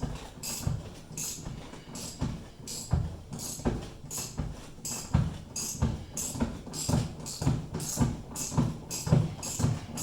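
Socket ratchet clicking in a steady back-and-forth rhythm, about two strokes a second, as a tight seatbelt anchor bolt is backed out.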